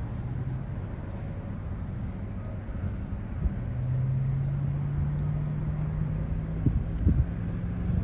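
Strong wind buffeting the microphone in a wind storm, a dense low rumble with sharp gusts thumping on it near the end. From about halfway a low steady hum, slowly rising in pitch, comes in underneath.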